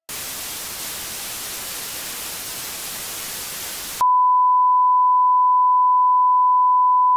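Television static hiss for about four seconds, then a sudden switch to a single, louder, steady broadcast test tone, the sound of a TV channel going off the air.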